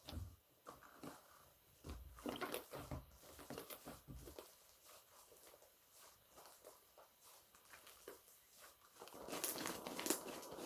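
Slime being squished and worked by hand, with small irregular clicks and pops. The clicks come thickest a couple of seconds in and again near the end.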